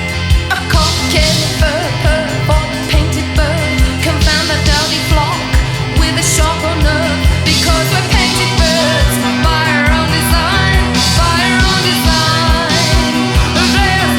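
Rock song playing: a drum kit keeps a steady beat about twice a second under guitars and a singing voice.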